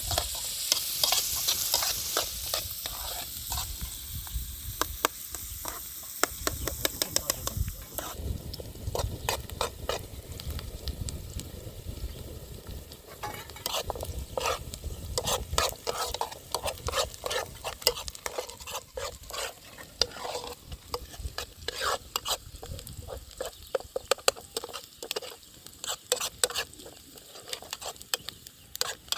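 Many rapid, sharp clicks and scrapes, with a high hissing sizzle strongest for the first several seconds and then fading.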